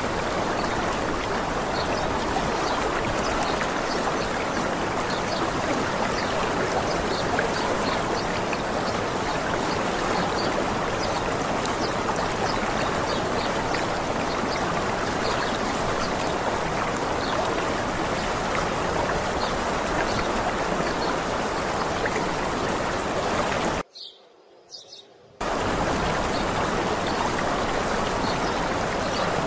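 Waterfall's running water, a steady rushing. Near the end it cuts out abruptly for about a second and a half, then resumes.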